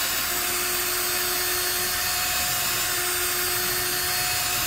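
DeWalt DCD771 20V cordless drill-driver running steadily with a steady whine, boring a pilot hole into a wooden fence post with a bit a couple of sizes smaller than the screw.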